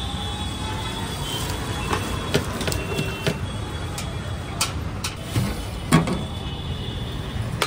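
Metal serving spoons clinking and knocking against aluminium cooking pots a handful of times, loudest about six seconds in, over a steady low background rumble.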